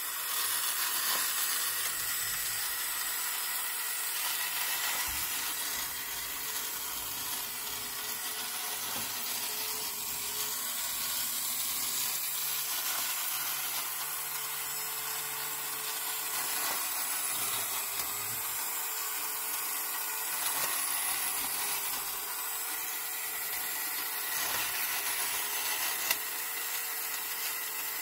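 Small battery-powered electric motor and tin gear train of a 1950s Line-Mar television truck toy running, a steady whir as it turns the rotating cameramen figures. There is one sharp click near the end.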